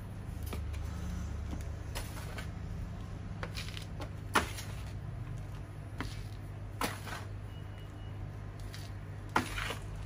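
Plastic plant pots and containers being handled: scraping and rustling with a few sharp knocks, the loudest about four seconds in and near the end, over a steady low hum.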